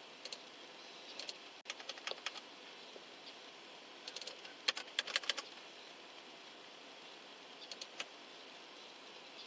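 Typing on a computer keyboard in bursts of keystrokes: a short run about a second in, a denser flurry around four to five seconds in, and a few more near eight seconds, over a faint steady hiss.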